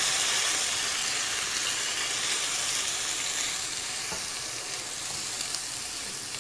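Finely chopped onion paste frying in hot oil in a nonstick pan, a steady sizzle that gradually gets quieter, stirred with a silicone spatula.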